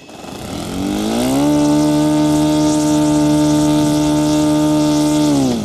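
Radio-controlled model Sopwith Pup's motor and propeller running up to high throttle, holding a steady pitch for about four seconds, then throttled back and dying away near the end.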